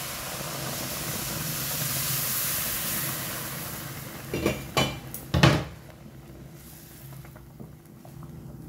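Hot boiling milk and water poured into a pan of roasted semolina (rava) and vegetables, hissing loudly as it hits the hot pan and throws up steam, for about four seconds. Then a few knocks against the pan as it is stirred with a wooden spatula, the loudest about five and a half seconds in, followed by a softer bubbling hiss.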